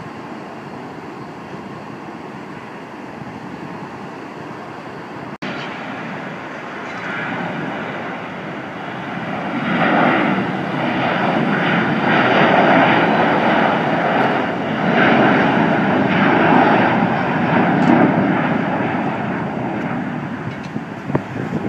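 Jet airliner engine noise that builds from a low steady rush to a loud roar about ten seconds in, holds for several seconds, then slowly fades toward the end. There is a brief cut-out about five seconds in.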